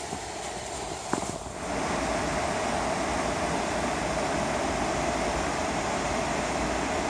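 Steady rush of river water spilling over low rock barriers and small cascades, setting in about two seconds in. Before it come a few brief crunches in snow.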